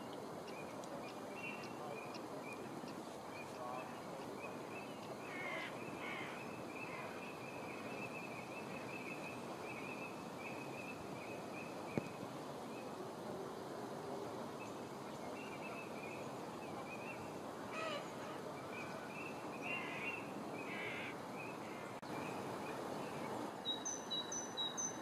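Birds calling over a steady rushing outdoor background noise: long runs of short, quickly repeated calls, a few louder calls around the middle and near the end, and some high chirps right at the end. A single sharp click comes about halfway through.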